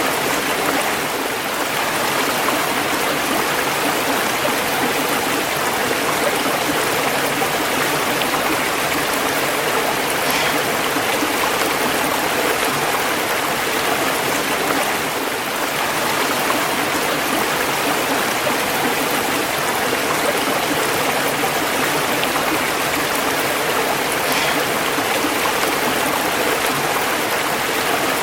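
Running water from a flowing stream, a steady, even rush and splash with no pauses.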